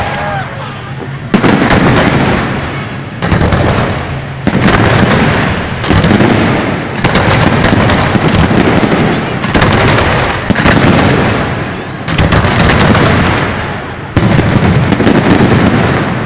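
Aerial firework shells bursting in quick succession: about ten loud bangs, roughly one every one to two seconds, each trailing off before the next.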